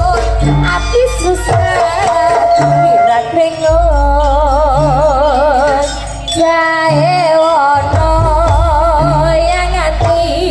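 Javanese jaranan dance music: a melody line with heavy vibrato over a deep sustained low hum and a drum pattern that repeats about once a second.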